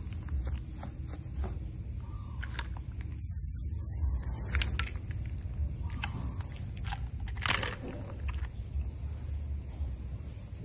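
Baby macaques handling plastic feeding bottles and a plastic toy bulldozer: scattered small clicks and taps, the sharpest about seven and a half seconds in. Under them runs a steady low hum and a high, thin buzz that stops and starts.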